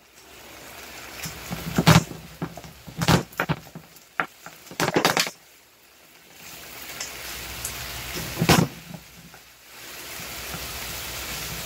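Ground turkey sizzling in a frying pan as two wooden spatulas stir and break it up, with a steady hiss and several sharp knocks and scrapes of the spatulas against the pan.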